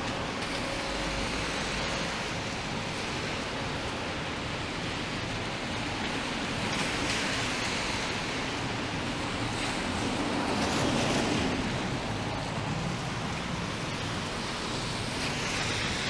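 Steady hiss of rain and wet city traffic, with tyres swishing past on the wet road three times, swelling and fading.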